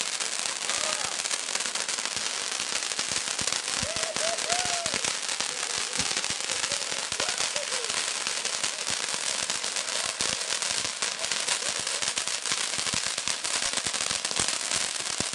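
A firework crackling continuously: a dense, rapid stream of small pops that keeps up steadily throughout.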